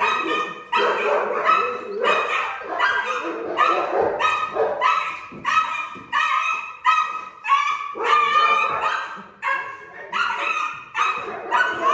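Dog barking over and over in quick succession, about two barks a second, with a couple of short pauses.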